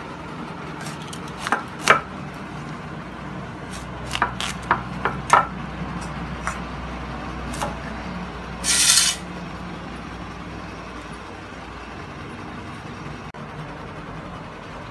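Pumpkin being cut by hand on a boti, a curved blade fixed upright on a wooden base: a run of sharp clicks and knocks, with a short rasping scrape about nine seconds in, over a steady low hum.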